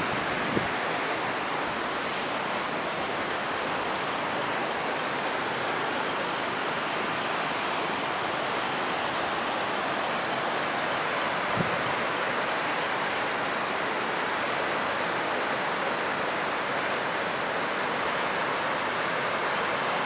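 Steady rushing of a waterfall, an even roar of falling water without change, with one light knock about halfway through.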